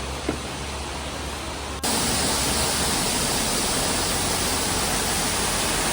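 Steady rush of creek water. About two seconds in it cuts abruptly to a louder, even rush of falling water.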